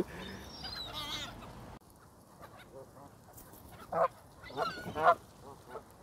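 Canada geese honking: a few calls near the start, then a run of louder honks about four to five seconds in.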